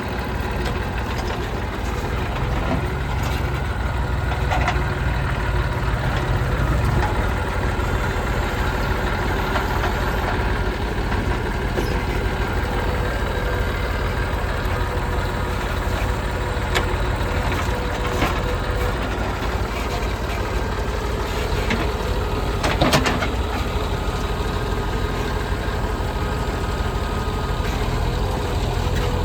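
Heavy diesel engine of a backhoe loader running steadily at work, with a few short knocks and clanks scattered through.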